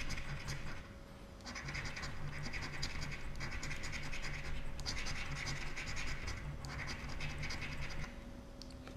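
Gratta e Vinci scratch card being scratched: quick, repeated rasping strokes scraping the silver coating off the play areas. The strokes come in spells, with a short pause about a second in, and they stop just before the end.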